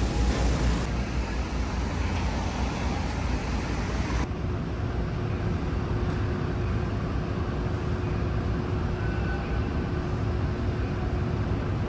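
Steady outdoor city noise, a traffic rumble. About four seconds in it changes abruptly to a thinner, more distant hum with a faint steady tone in it.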